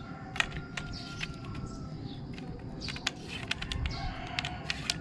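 Small metallic clicks and scrapes of a threaded metal butt cap being handled and screwed back onto the end of a carbon fishing pole, the clicks coming more often in the second half. Birds call faintly in the background.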